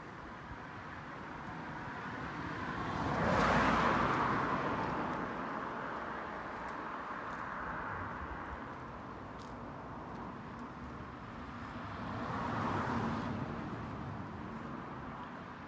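Two cars passing by, each swelling up and fading away over a few seconds: the louder about four seconds in, the second near the end, over a steady background of distant traffic.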